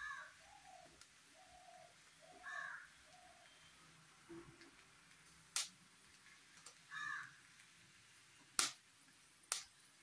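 Birds calling: three short, harsh calls spread through, and a run of softer, lower notes in the first few seconds. Three sharp clicks in the second half are the loudest sounds.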